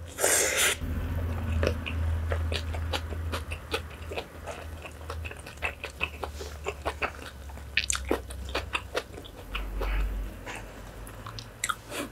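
Close-miked eating of freshly mixed bibimbap with young radish kimchi: biting and chewing with crunches and wet mouth clicks. A short noisy burst comes at the very start, and a steady low hum runs underneath.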